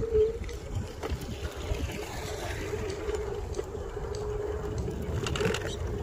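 Electric kick scooter riding over a rough dirt track: a steady motor whine over a low rumble from the tyres on the ground, with scattered small rattles and clicks.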